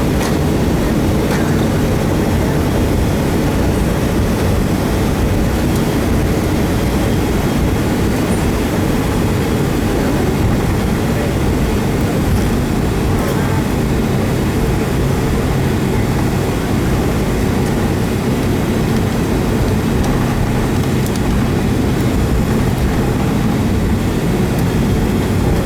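Steady cabin rumble of a Boeing 757 taxiing on the ground, with the engines at idle and the wheels rolling over the taxiway. A few steady low hums run through it.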